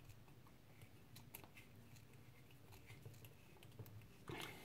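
Near silence, with a few faint, scattered small clicks from fingers handling a Fitbit Charge HR fitness tracker and its band.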